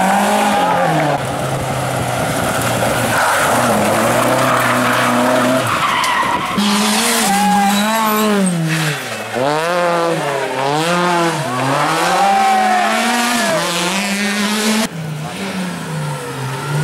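Rally car engine at high revs, its pitch dipping and climbing several times in quick succession through gear changes and bends, with tyre skidding. The sound changes abruptly twice, as between one car and the next.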